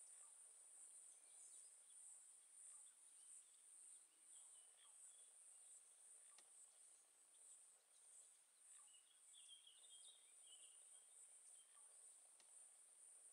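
Faint, steady, high-pitched insect chorus with a slight pulse, with a few faint bird chirps about four seconds in and again around nine to ten seconds in.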